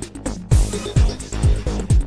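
Electronic dance music with a steady kick drum that comes in about half a second in and then beats about twice a second, with hi-hats above it.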